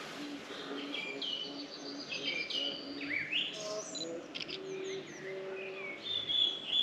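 Several wild birds singing and chirping over one another: quick high chirps and short whistles that slide up and down, with a lower repeated note underneath.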